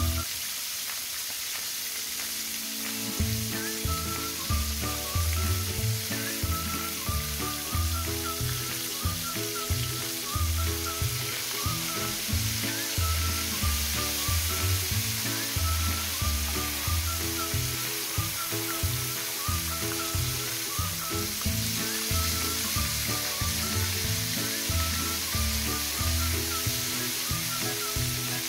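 Whiting frying in hot oil in a stainless skillet, a steady dense sizzle. Background music with a steady low beat plays underneath.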